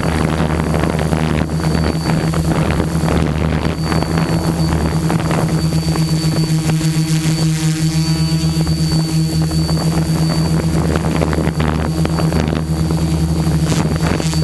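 HMF U580 quadcopter's four brushless motors and propellers humming steadily, heard from the onboard camera, with a thin high whine over the hum. Wind buffets the microphone, most in the first few seconds.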